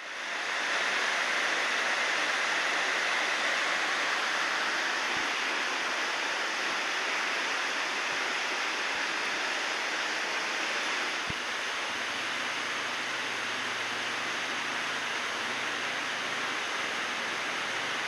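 Waterfall with its water rushing steadily.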